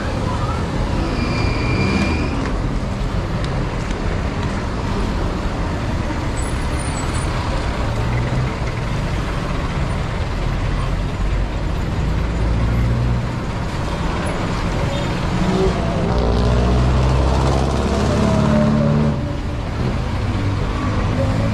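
Road traffic on a busy city street: cars, vans and jeepneys running past in a continuous stream, with a louder, deeper engine passing close about sixteen to nineteen seconds in. A short high tone sounds about a second in.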